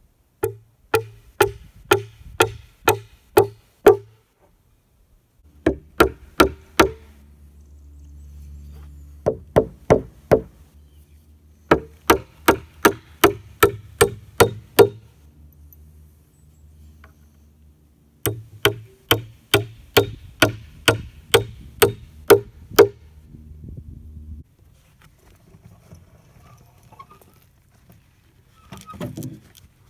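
Hammer nailing the 2x6 boards of a wooden raised garden bed: runs of sharp strikes, about two to three a second, in five bursts with short pauses between them. A low steady hum sits underneath from about five seconds in until about twenty-four seconds in.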